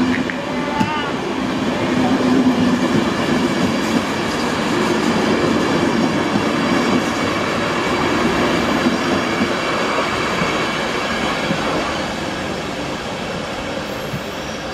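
Passenger coaches rolling past on the track, their wheels running steadily on the rails. The noise eases off near the end as the train pulls away.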